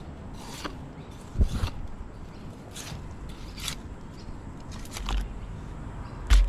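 Fillet knife cutting a mangrove jack's fillet away from the rib cage and backbone: a series of short, separate cutting strokes spread out over several seconds, with a heavier thump near the end.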